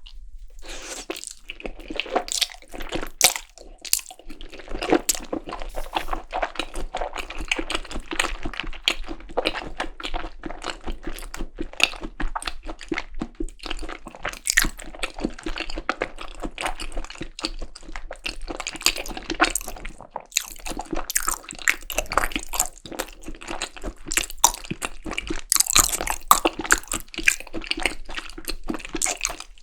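Close-miked chewing of seasoned raw beef tartare (yukhoe): continuous wet mouth sounds with many small smacks and clicks.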